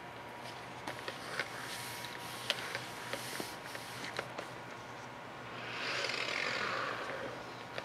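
Scattered small clicks and taps of handling, with a soft scraping hiss from about five and a half seconds in that lasts roughly two seconds.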